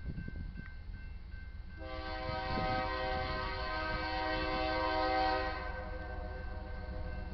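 Air horn of an approaching GE Dash 9-44CW diesel locomotive sounding one long, several-note chord blast, starting about two seconds in and cutting back after about four seconds, then trailing off.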